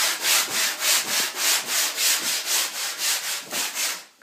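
Hand sanding: sandpaper on a hand-held sanding pad rubbed back and forth over a painted wooden desk, a rhythmic scratching hiss at about four strokes a second that stops shortly before the end.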